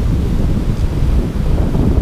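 Wind buffeting the camera microphone, a loud rumbling noise that swells and dips, over the rush of water pouring down a spillway.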